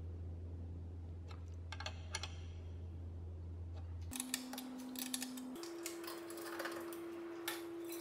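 Small metallic clicks and taps of a spanner turning the nuts on LED light bar mounting brackets and knocking against the metal brackets, getting busier about halfway through, over a steady hum.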